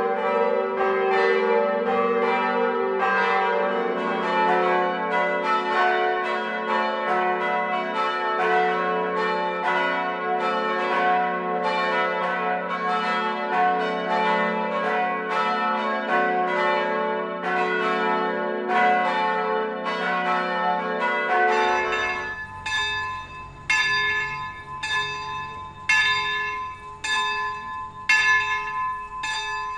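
Church bells swinging in a full peal, several bells striking over one another about twice a second, with a deep hum beneath. About three quarters of the way through, it cuts abruptly to a different, lighter-sounding set of bells striking more sparsely.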